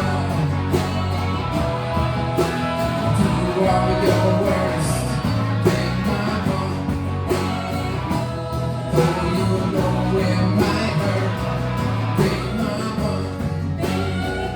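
Live band playing a song with guitar, bass and a steady beat.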